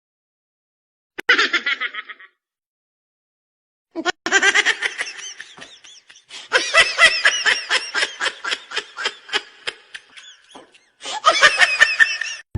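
Laughing sound effects: a short burst of laughter about a second in, then after a silent gap a long run of rapid, high-pitched ha-ha laughter in quick pulses, with a last loud burst near the end.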